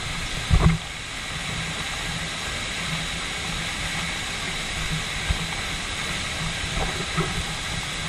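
Steady hiss and rush of an 85-metre waterfall, heard from behind the falling water with spray striking the microphone. A few low knocks on the microphone, the loudest about half a second in.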